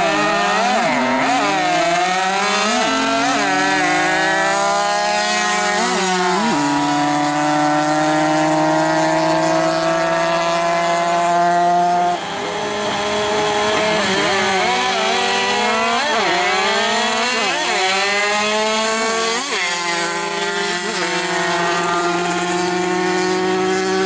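Two-stroke racing mopeds accelerating hard on a drag strip, their engine pitch climbing and dropping back at each gear change, then holding a high note at full speed. About halfway through, a new run starts and climbs through the gears the same way.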